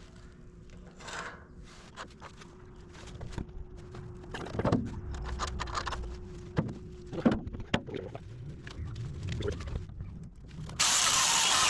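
Scattered metal clanks and knocks as tools and parts are handled. About eleven seconds in, a die grinder starts abruptly and runs steadily at full speed, grinding paint off steel.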